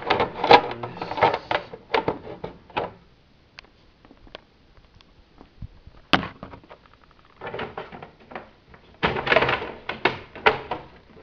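Plastic shroud of a Schwinn 430 elliptical being handled and snapped onto the frame: a run of plastic clicks and knocks in the first few seconds, one sharp snap about six seconds in, and more clattering knocks near the end.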